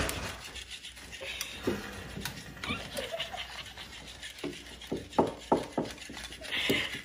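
Electric flopping fish cat toy wriggling and slapping against chair legs and the floor, with rustling and scattered soft knocks, then three sharper knocks a little after five seconds in.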